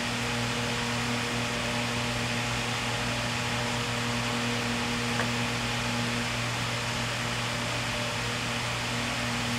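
A steady background hum over a constant hiss, with one faint click about five seconds in.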